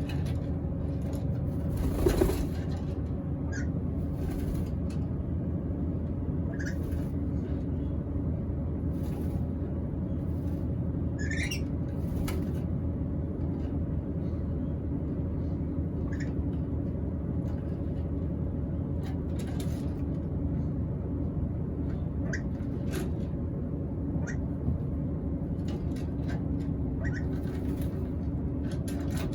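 Black-capped lory giving scattered short chirps and clicks over a steady low background hum, with one wavering, rising squeal about eleven seconds in. A louder knock comes about two seconds in.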